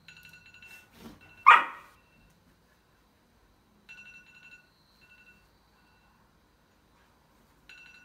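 A phone alarm plays in short repeated phrases of high tones, stopping and starting again about every four seconds. A dog barks once, loudly, at the alarm about a second and a half in.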